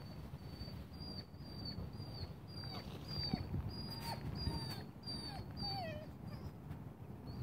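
German Shepherd puppy on a leash whining: a run of short, high-pitched whimpers about every half second, several falling in pitch. Typical of a puppy fretting at being held back by the leash.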